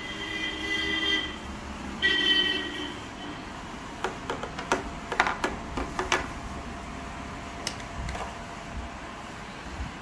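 A vehicle horn honks twice in the first three seconds, two steady blasts. A run of sharp metallic clicks follows between about four and six seconds in, with one more near eight seconds, as a Sheikh Arms Raptor .32 bore pistol is handled.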